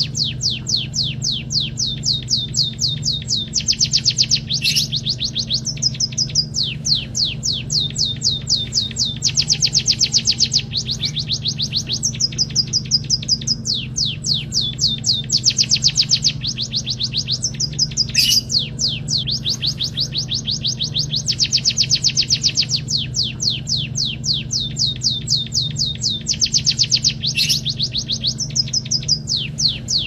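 Caged munia singing a canary-style song it has been trained on: fast rolling trills of rapidly repeated high notes, changing to a new roll every second or two, with a few sharp single notes. A steady low hum sits underneath.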